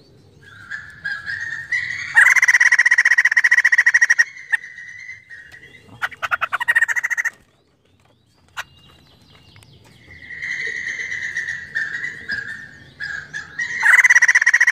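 White-crested laughingthrush giving loud, rapid chattering calls in bouts. A burst of about two seconds comes early, a shorter burst follows, and after a brief lull the chatter builds into another loud burst near the end.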